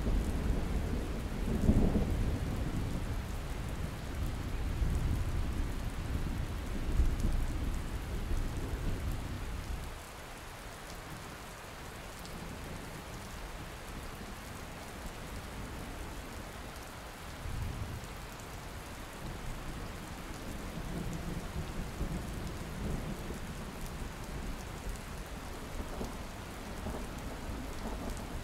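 Steady rain falling with rolling thunder. The thunder rumbles heavily through the first ten seconds or so, then drops away to leave the rain, with fainter rumbles later.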